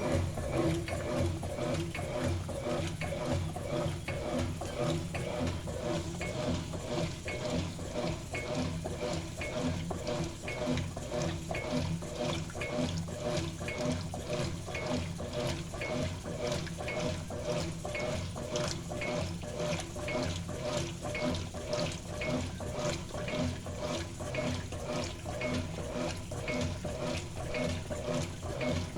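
Consul CWS11A 11 kg washing machine in its agitation cycle, churning water and a load of kitchen cloths back and forth in a steady, regular rhythm of about one and a half strokes a second.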